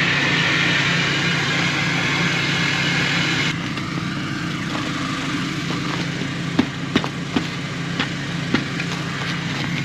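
Truck engine idling steadily, with a steady hiss that cuts off suddenly about a third of the way in. Later comes a scattering of sharp metallic clinks and knocks as the trailer is hitched up.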